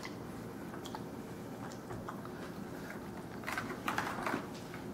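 Raw chicken breasts being turned over by hand in a beer marinade in a disposable aluminum pan: faint wet squishing with a few soft clicks, a little louder around three and a half to four seconds in.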